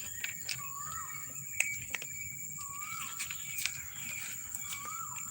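Steady high insect buzz, like crickets or cicadas, with a short rising-and-falling call repeated about every two seconds and a few scattered sharp clicks.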